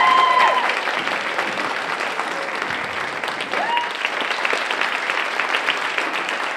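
Audience applauding, loudest at the start and then steady.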